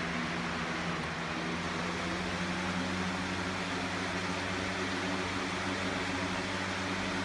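Hurricane 20-inch box fan running steadily: an even rush of air over a steady low hum.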